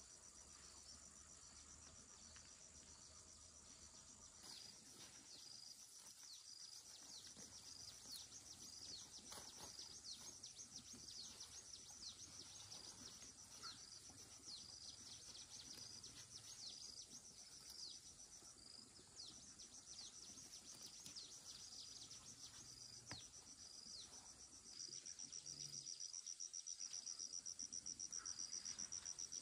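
Insects trilling: a steady, rapidly pulsing high-pitched chirr with short chirps repeating over it, growing louder near the end.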